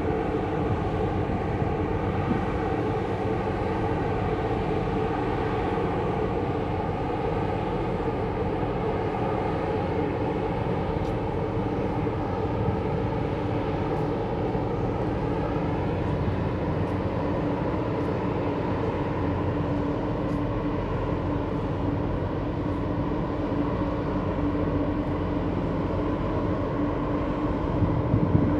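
A ship's diesel engine running steadily, a low drone with several steady hums layered over it, with a brief swell in the low rumble near the end.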